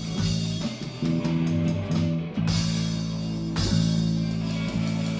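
Blues-rock band playing an instrumental passage between sung lines: guitar and bass holding low chords over a drum kit, with a sharp drum hit about three and a half seconds in.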